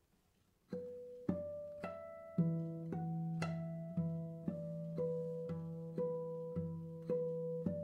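Nylon-string classical guitar played fingerstyle: single plucked notes about two a second, each left ringing into the next over a repeated low bass note, starting just under a second in.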